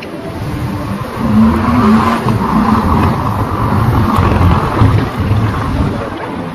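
Street traffic noise: a motor vehicle's engine running close by over a steady roar, growing louder about a second and a half in.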